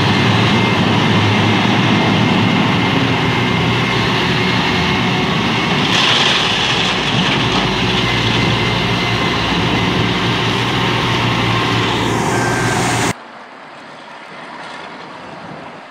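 Large diesel engines of a mining haul truck and wheel loader working through floodwater, running loud and steady. About 13 seconds in the sound cuts off abruptly to a quieter, more distant machine sound.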